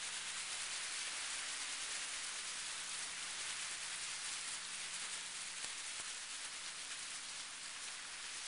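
Steady hiss with a faint low hum underneath.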